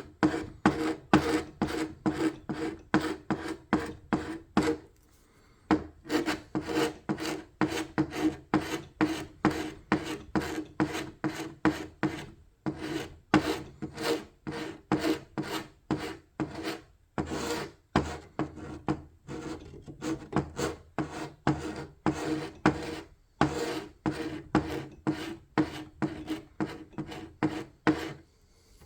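Rhythmic hand strokes of an abrasive tool rubbing across a wooden surface, stripping old paint and finish, at about two to three strokes a second, with a short pause about five seconds in and a few brief breaks later.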